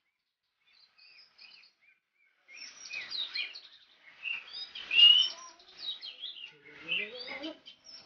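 Oriental magpie-robin (kacer) singing in its cage: a few faint chirps in the first two seconds, then a fast, varied run of high chattering and whistled notes from about two and a half seconds on.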